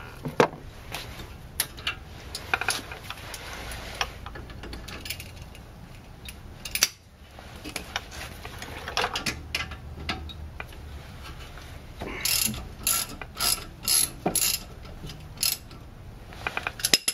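Socket ratchet clicking in short runs as the brake caliper's mounting bolt is backed out, with scattered metallic clicks and knocks; the densest run of clicks comes about twelve seconds in.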